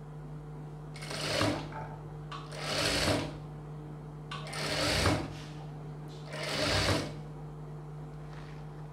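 Industrial sewing machine stitching a seam through layers of fabric in four short runs, each under a second, with a steady low hum in the pauses between them.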